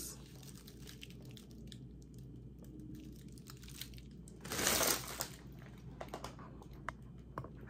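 Handling of a red mesh bag of onions: faint small clicks and rustles, then a louder, brief rustling crinkle about four and a half seconds in as the bag is lowered.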